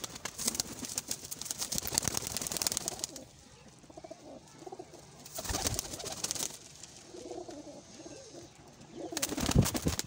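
Domestic pigeons in a loft, cooing softly, with bursts of wing flapping: a rustling flurry in the first three seconds, another short flurry about halfway through, and the loudest one near the end.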